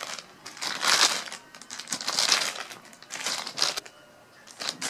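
Crinkly plastic bag packaging being crinkled in short bursts about once a second.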